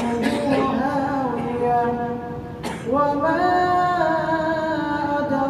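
An imam's melodic Quran recitation in Arabic, drawn out in long held notes that slide between pitches, with a short break about halfway through.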